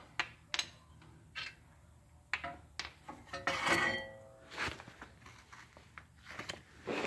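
Scattered metal clinks and knocks as a brake caliper bracket and its bolts and tools are handled and set down on a concrete floor, the loudest about halfway through.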